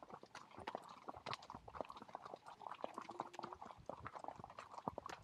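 Horses' hooves walking on a gravel road: a faint, uneven patter of crunching clicks, several steps a second.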